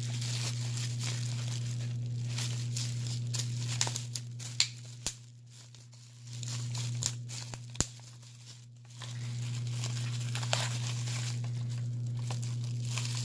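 Product packaging being opened by hand: plastic crinkling and tearing with a few sharp clicks, over a steady low hum that drops out twice for a second or two.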